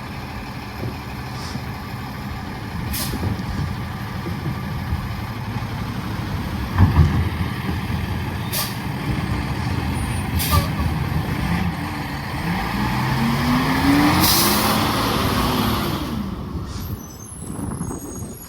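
Freightliner garbage truck's diesel engine running, revving up and back down near the end, with several short air hisses and a heavy thump about seven seconds in.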